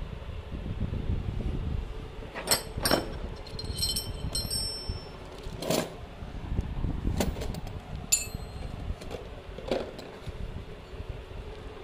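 Steel masonry drill bits and chisels clinking against each other as they are picked up and handled: a handful of light metallic clinks, some with a short ring, over a low rumble of handling noise.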